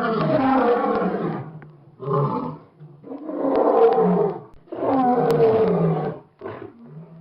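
Lion roaring: four deep roars in a row with short pauses between them, the second one brief, then a short low grunt near the end.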